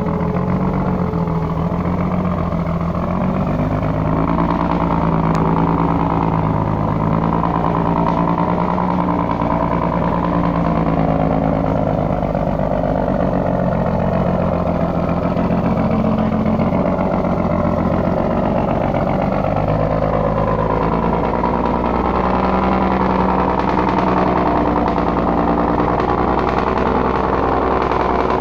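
1974 Marmon dump truck's diesel engine working hard under a load of rocks as it crawls uphill, running steadily with its pitch shifting up and down in small steps.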